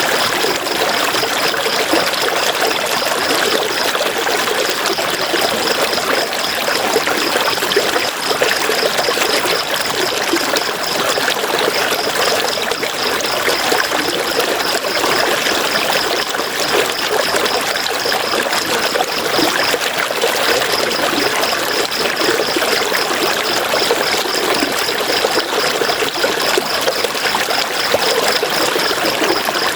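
River water flowing steadily. A high, fast pulsing sound runs above it, breaking off briefly three times.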